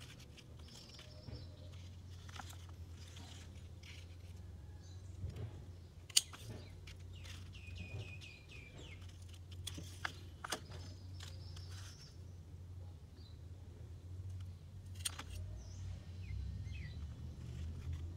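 Pruning shears snipping through a green jackfruit stem, a few sharp separate clicks, over birds chirping and a steady low hum.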